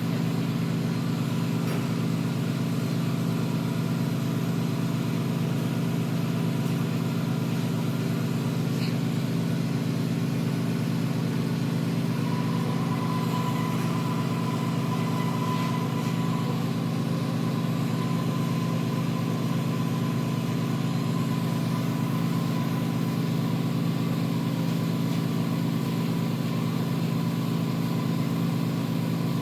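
A steady low mechanical drone that holds constant, with a faint thin whine joining in about twelve seconds in.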